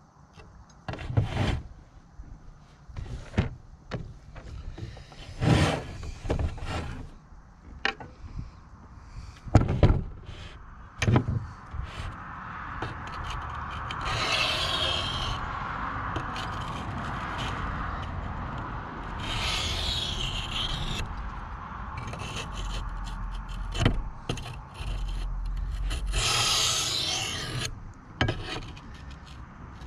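Knife blade being stroked along a coarse sharpening stone: a steady scraping that swells with a few harder passes. Scattered knocks and short scrapes come first, before the strokes settle into a continuous run about twelve seconds in.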